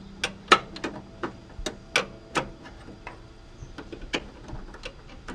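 Irregular sharp metallic clicks and clinks, a dozen or so, the loudest in the first couple of seconds, as a wrench is worked on a steel brake line fitting to free the old line.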